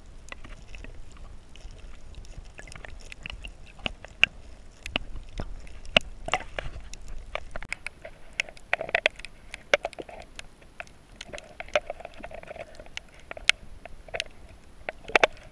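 Underwater sound on a shallow coral reef, picked up by a submerged camera: irregular sharp clicks and crackles, a few of them louder, over a faint low rush of water.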